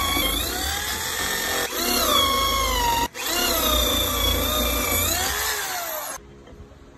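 Corded electric drill boring holes into a wooden header beam for lag screws. Its whine rises and falls in pitch as the bit loads up in the wood. It stops for a moment about three seconds in, then runs again and cuts off near the end.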